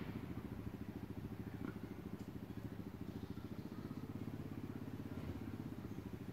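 Diesel engine idling, a steady, even chugging beat.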